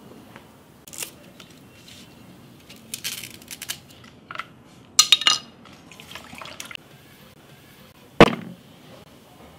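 Water splashing and sloshing in a plastic bowl as onion, ginger and leaves are rinsed, in several short bursts, the loudest about halfway through. A single sharp knock comes near the end.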